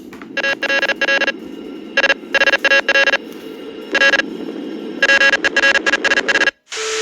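Electronic beeping: a pitched tone switching on and off in quick runs of short beeps, over a steady low rumble that cuts off suddenly near the end.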